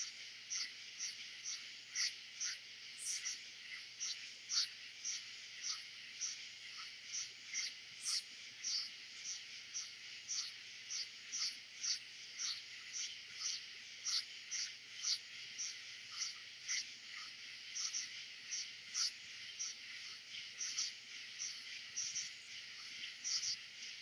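Night chorus of katydids, crickets and frogs blended into one sound: a steady high buzz under a rhythmic pulsing call that repeats about two to three times a second.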